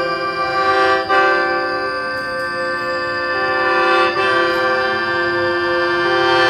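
Music of long held chords, the chord changing about a second in and again about four seconds in.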